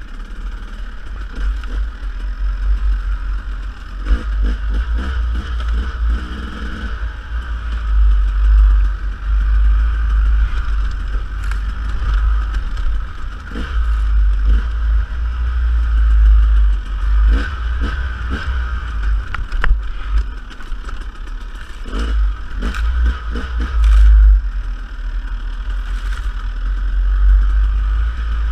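Dirt bike under way on a trail: the engine runs steadily, with heavy wind buffeting on the microphone. Sharp clatters of rocks and the bike's chassis come at intervals, most often in the second half.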